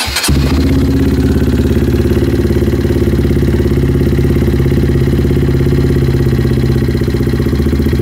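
2011 Honda CBF125's single-cylinder four-stroke engine cranking briefly, catching within a fraction of a second, then idling steadily. This is its first start after an oil change and new crankcase gaskets.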